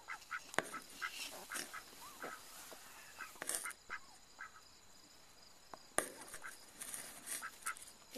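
Short animal calls repeating at irregular intervals, with a sharp click about six seconds in.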